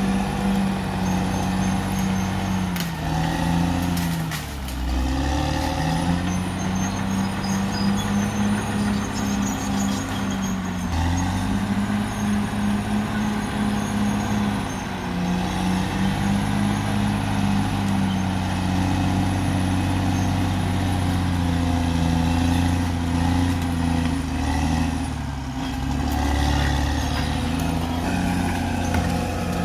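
Caterpillar D6R XL bulldozer's diesel engine running hard, its pitch sagging and recovering several times as it takes load, with a faint high whine above it.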